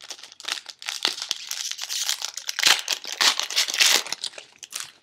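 A 2011 Upper Deck football card pack wrapper being torn open and crinkled by hand: a dense, crackly rustle that stops just before the end.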